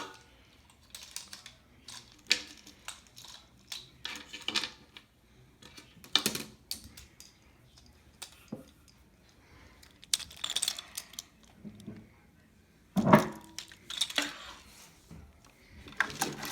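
Small plastic toy figures clicking, knocking and rattling as they are picked up and handled, in irregular bursts with short rustles between them. The loudest knock comes about thirteen seconds in.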